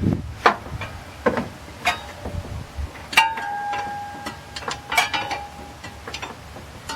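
Metal hand tools clanking and knocking against the engine fan's fastening while it is worked loose, with one ringing metal clank about three seconds in and another near five seconds.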